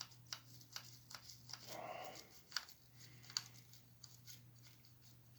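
Faint, irregular clicks and scratches of a small hand tool picking and scraping built-up grime out of an HO-scale diesel switcher's chassis. They are busiest in the first three and a half seconds, then thin out.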